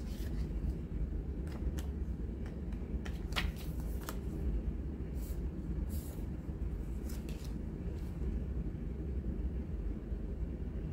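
Paper and thin card rustling and tapping as album booklets and photocards are handled and laid down, mostly in the first half, over a steady low hum.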